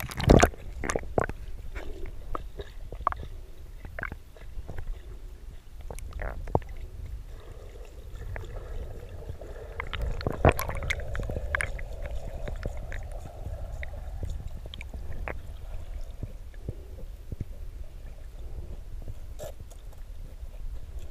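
Muffled water sound heard through a submerged camera: a low rumble with scattered clicks and knocks as a small dog paddles through the lake water. A loud splash comes near the start.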